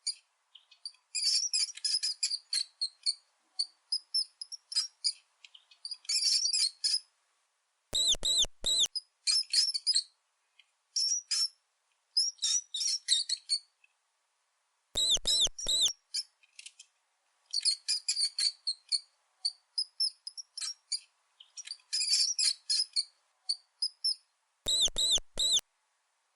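Mouse squeaking: rapid trains of short, high-pitched squeaks separated by silent gaps, with three louder, longer squeaks spread several seconds apart.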